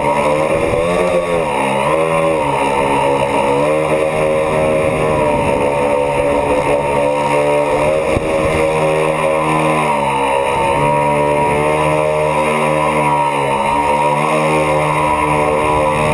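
Tricopter's three electric motors and propellers whining in flight, heard from the onboard camera. The pitch dips and climbs back as the throttle changes, once shortly after the start and again a few times in the second half.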